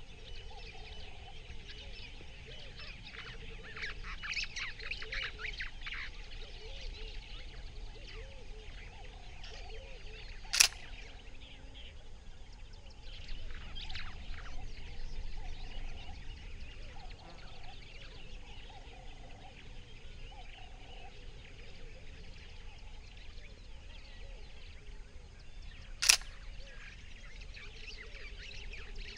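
Birds chirping and calling over a steady outdoor background, with two sharp clicks: one about a third of the way in and one near the end.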